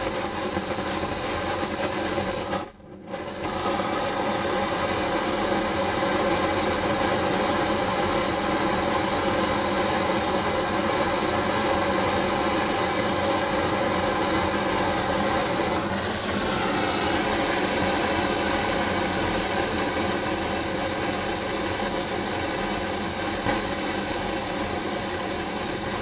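Gas blowtorch flame burning with a steady roaring hiss. It briefly dips out about three seconds in and its tone shifts slightly later on. The torch's gas supply is running a little low.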